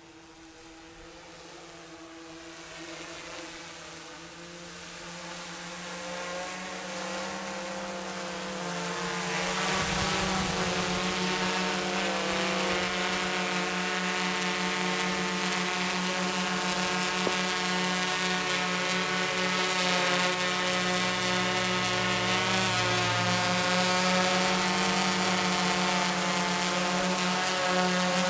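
TBS Discovery quadcopter's four DYS BE3608 630kv pancake brushless outrunner motors and propellers buzzing, growing louder over the first ten seconds or so as it flies in, then a steady hum close by with its pitch wavering as the motors correct to hold a hover.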